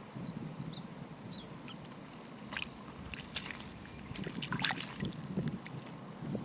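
Shallow water sloshing and splashing, with sharp splashes about two and a half, three and a half and four and a half seconds in. Faint high chirps sound in the first two seconds.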